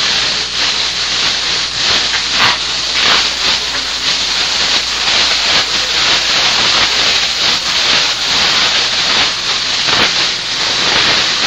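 Plastic shopping bag rustling and crinkling loudly and without a break as it is shaken, swung and set down with a cat inside.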